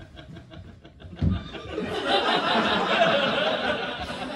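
Audience laughing: a low thump about a second in, then a swell of laughter that fades toward the end.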